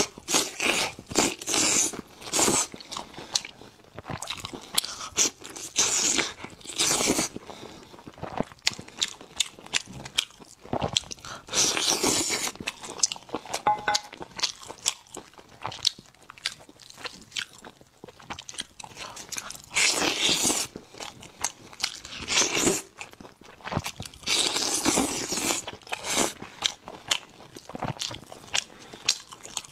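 A person biting into and chewing meat off glazed ribs, with irregular crunches and chews, some short and some about half a second long.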